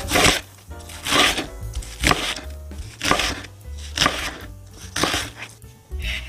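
Chef's knife chopping onion on a bamboo cutting board: repeated sharp blade strokes against the wood, over background music.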